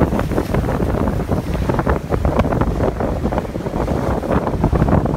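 Wind buffeting the microphone in uneven gusts aboard a sailboat under way, with water washing along the hull.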